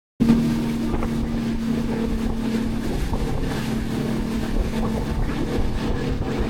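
Charter fishing boat's engine running steadily underway, a constant hum over low rumble, with wind buffeting the microphone. It cuts in suddenly just after the start.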